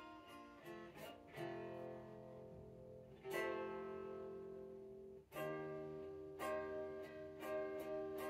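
Unplugged electric guitar strummed: a few chords struck and left to ring, then a steady strumming rhythm of about two strokes a second from around six seconds in.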